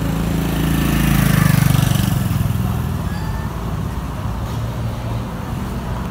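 A motor vehicle's engine passing by, swelling to its loudest about a second and a half in and then easing off into a low steady hum.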